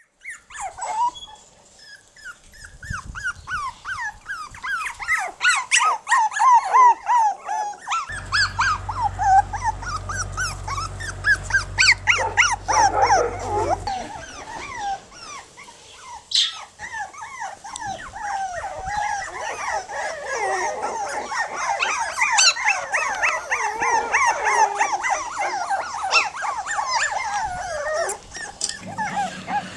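A litter of one-month-old Jack Russell Terrier puppies crying out almost without a break, in many short, overlapping high-pitched cries that bend up and down. A low steady hum comes in suddenly about a third of the way through and cuts off about six seconds later.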